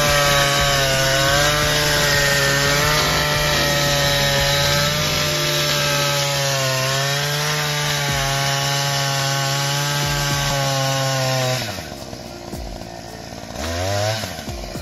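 Oshima earth auger's two-stroke engine running fast and steady while the auger bores into soil, its pitch dipping and recovering slightly under load. About twelve seconds in it drops back and goes much quieter, then revs up briefly near the end.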